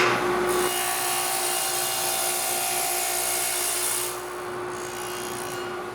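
Table saw with a dado set running, with a steady hum. From about half a second in to about four seconds in, it makes a short test dado cut across a board, then runs free with a quieter hum.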